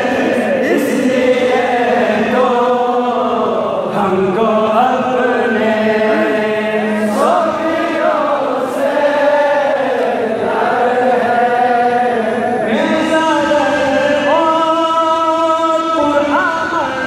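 A man singing a tarana, a devotional Sufi anthem, in a chanting style with long held notes and swooping pitch.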